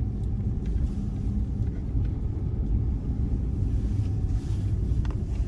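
Steady low rumble of a car driving, heard from inside the car.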